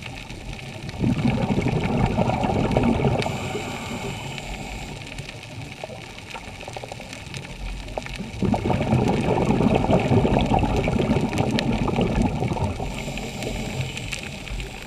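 Scuba diver's breathing heard underwater: two long rushes of exhaled bubbles, one starting about a second in and one about eight seconds in, each lasting a few seconds.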